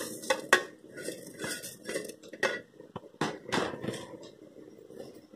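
Brass plate clinking and knocking against a steel mixer-grinder jar as sesame seeds are tipped and tapped off into it. The sound is a string of short, irregular metallic clinks.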